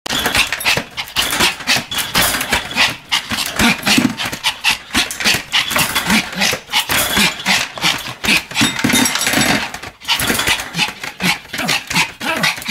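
Pomeranian barking over and over in quick succession, with a brief break about ten seconds in.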